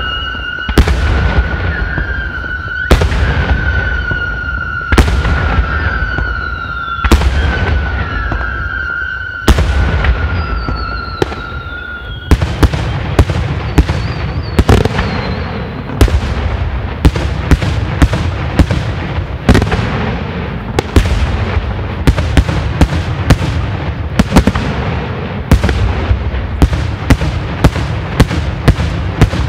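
Daytime fireworks display: aerial shells bursting with sharp bangs, about one every two seconds at first over a steady high whistle. The whistle stops about twelve seconds in and the bangs come faster, several a second near the end.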